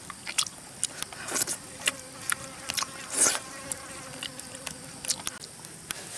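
Close-up eating sounds: chewing with wet lip smacks and clicks, and two louder breathy sounds, the first about a second and a half in and the second just after three seconds. An insect buzzes faintly through the middle.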